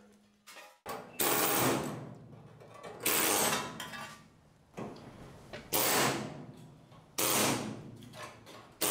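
A handheld power tool on a truck's sheet-metal cab corner, run in five short bursts that each start suddenly and fade away.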